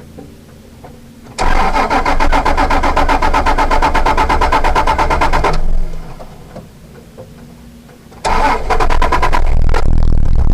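Acura NSX V6 being cranked on the starter in two long goes, a steady run of rapid, even pulses for about four seconds, a pause, then cranking again. Near the end the pulsing gives way to the engine running.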